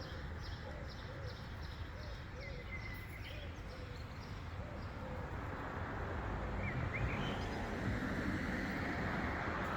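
Outdoor city ambience: a steady low hum of distant traffic, with birds calling over it, a soft repeated call through the first half and a few brief chirps later.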